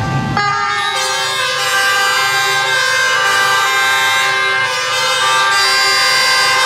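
Many emergency vehicles' two-tone sirens sounding together. They start abruptly about half a second in, and their alternating pitches overlap into a dense, clashing chord.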